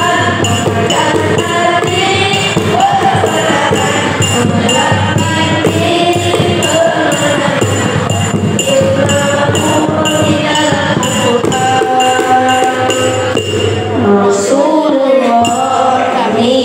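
Boys' nasyid group singing into microphones, a lead voice with the others joining in, over a steady beat of hand percussion.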